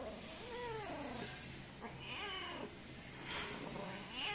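Black-and-white domestic mother cat meowing three times, each call drawn out and falling in pitch.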